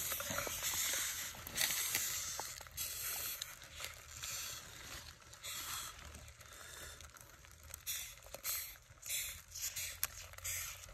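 A spoon stirring dung beetles and chopped chillies in a wooden mortar, a wet squishing and crackling that is loudest in the first few seconds. Then scattered small clicks and crackles as fingers pick out a beetle and pull at its shell.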